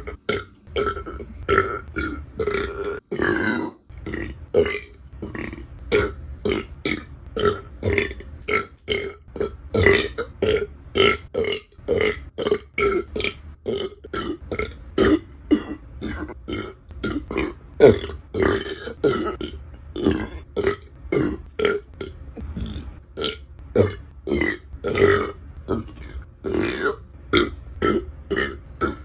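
A woman burping over and over: a rapid string of small, short burps, one after another about every half second to second.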